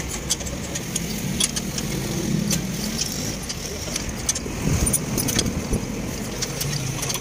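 Irregular light metallic clicks and clinks of a steel ring spanner working a nut on a truck's leaf-spring mounting, over a low steady rumble.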